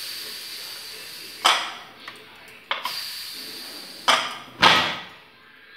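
Steam hissing out of an aluminium pressure cooker's vent as its pressure is let off, fading away, followed by a series of sharp metal clinks and clanks from the cooker's weight and lid being handled, the loudest two near the end.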